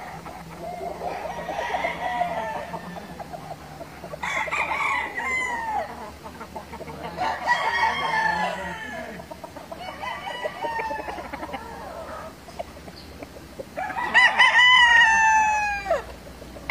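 Gamecocks crowing one after another, about five crows at different loudnesses, each ending in a falling pitch; the last crow near the end is the loudest.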